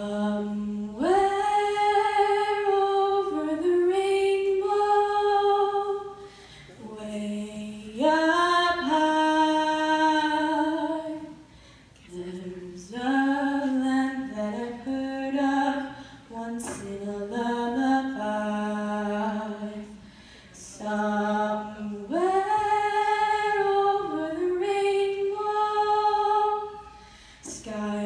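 A girl's solo voice singing unaccompanied, in long held phrases with short pauses between them.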